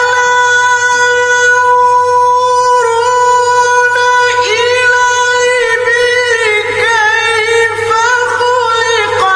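Male qari's solo voice reciting the Quran in the melodic tilawah style. He holds one long, high note for about the first three seconds, then breaks into quick trills and rising-and-falling melodic turns.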